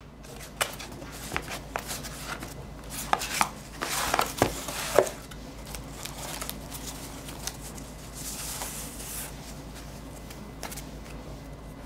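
Hands opening a cardboard mailer box: a run of sharp knocks and clicks on the cardboard as the box is handled and the lid opened, the loudest about five seconds in. Then a soft rustle of the white packing sheet and acrylic plate being lifted out, about eight seconds in.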